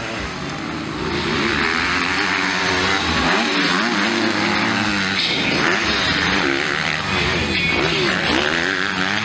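Several 250cc motocross bikes racing, their engines revving up and dropping off again and again as the riders work the throttle through corners and jumps. The sound gets louder about a second in.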